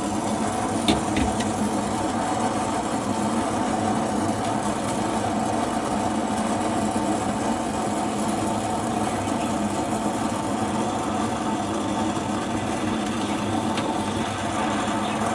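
Steady mechanical hum of a running motor, with a couple of faint clicks about a second in.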